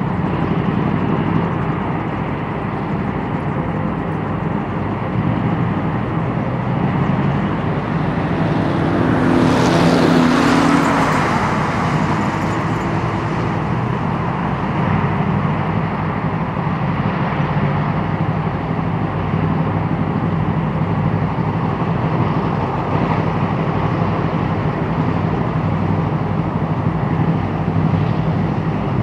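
Engines of a column of eight-wheeled armoured personnel carriers driving along a road: a steady low drone, with a louder rushing swell around ten seconds in.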